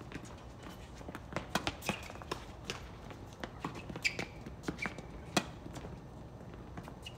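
Tennis rally on a hard court: rackets hitting the ball and the ball bouncing, as a string of sharp pops at irregular intervals. Players' shoes patter and give a few short squeaks on the court surface.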